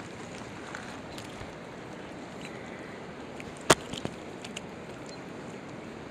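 Steady hiss of flowing creek water and wind, with one sharp click about two-thirds of the way through and a few fainter ticks just after.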